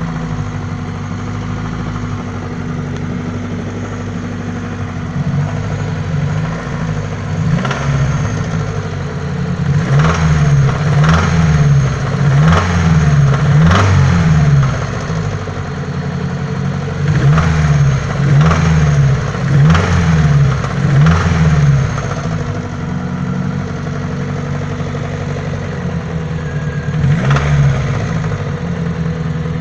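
Daewoo Nexia 8-valve engine idling and being revved in repeated short blips, with a knock from the engine that the owner is showing.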